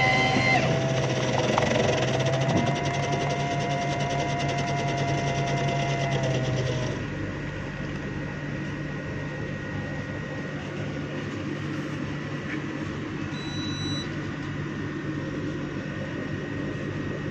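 Tea and coffee vending machine whirring steadily as it dispenses coffee into a cup. The whirr cuts off about seven seconds in, leaving a lower steady machine hum.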